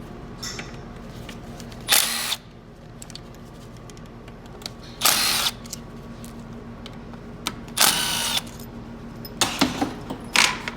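Cordless power drill-driver spinning in short bursts of about half a second, four times, with a quick run of shorter bursts near the end, backing out bolts on an automatic transmission case.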